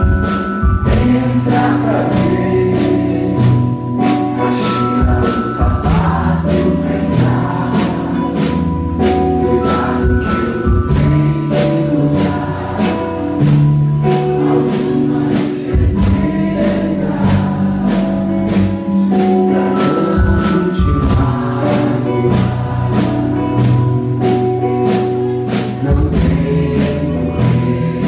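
Live band performing an MPB song: electric guitars, bass, drum kit and keyboard over a steady drum beat, with singing.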